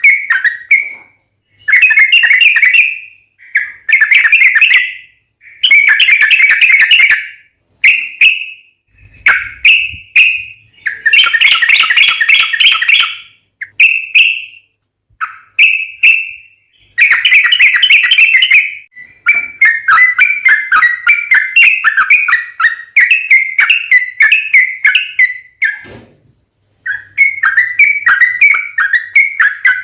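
Yellow-vented bulbul (trucukan) singing loudly: bubbly phrases a second or two long with short pauses between them, then, from about two-thirds of the way in, a long fast run of chattering notes broken by one brief pause. This is the lively, long-running song that bird-keepers play as a lure to make other bulbuls answer.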